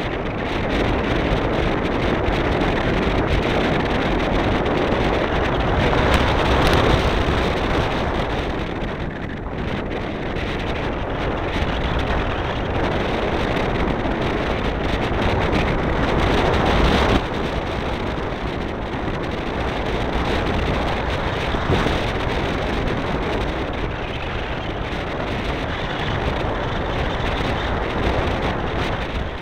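Airflow rushing over the onboard camera's microphone of a model plane in flight, a steady roar of wind noise that swells twice and drops off suddenly about two-thirds of the way in.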